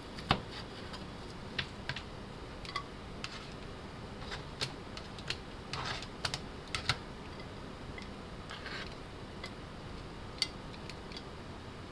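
Kitchen knife slicing through braised pork trotter and tapping a plastic cutting board, then tongs clicking and scraping as the slices are lifted onto a ceramic plate: scattered light clicks and taps, the sharpest just after the start, with brief scrapes about six and nine seconds in.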